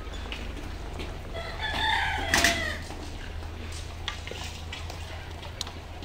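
Domestic rooster crowing once, about a second and a half in, lasting under two seconds.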